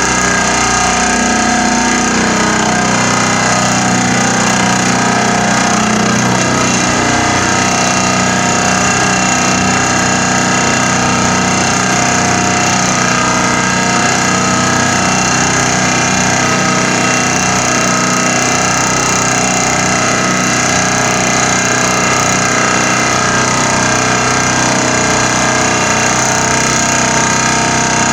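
Pile driver sinking a rolled steel profile pile into the ground: a loud, steady vibrating drone with several held tones and no separate blows.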